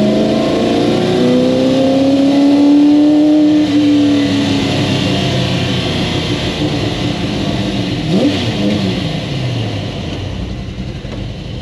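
Ford GT40 Mk I's V8 heard from inside the cabin, accelerating with its note rising for the first few seconds. The throttle then eases, and the engine note falls away and grows quieter as the car slows.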